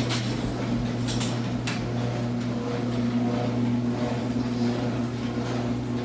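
Older Genie garage door opener running with a steady motor hum, with a few sharp clicks in the first two seconds.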